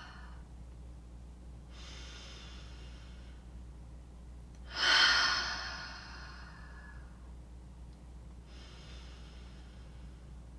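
A singer's audible breaths between sung phrases: a faint breath about two seconds in, a loud, sudden breath about five seconds in that fades over two seconds, and another faint one near the end. These are the paced exhales and inhales that set up each phrase in a breath-to-sound warm-up.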